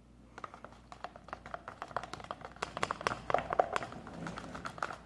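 Quick, irregular small clicks and taps, several a second, as Elmer's glitter glue is squeezed into watery homemade slime in its container.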